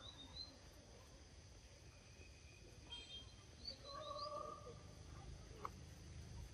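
Faint forest ambience with a few high, twittering bird chirps near the start and again about three and a half seconds in, and a short held call lower in pitch around four seconds in.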